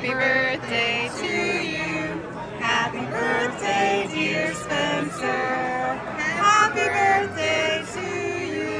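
A group of men's and women's voices singing a song together.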